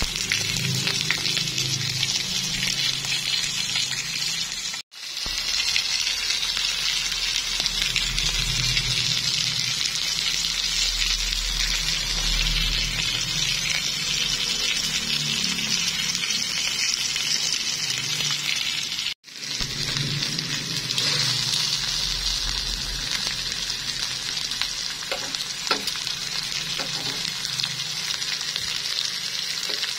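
Bone-in rib steak sizzling steadily as it sears in a hot frying pan with garlic cloves in the fat. The sizzle cuts out for a moment twice.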